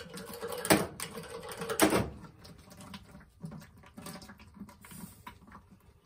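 Two sharp knocks about a second apart, then lighter scattered clicks and scrapes, from hands and tools working at a steam boiler's sight-glass fitting while the broken gauge glass is taken out.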